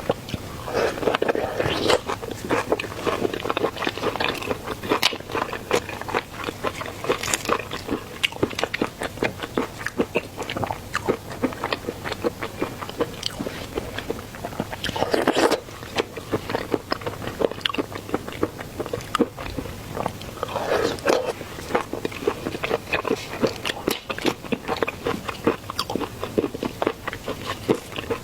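Close-miked eating of seafood: steady biting, chewing and crunching with dense wet clicks and crackles, and a few louder crunches spread through.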